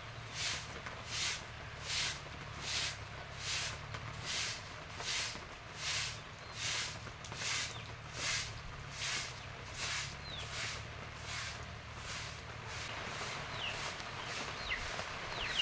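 Short hand-held straw broom sweeping a damp packed-earth yard: steady rhythmic swishes, a little more than one stroke a second, growing fainter in the last few seconds.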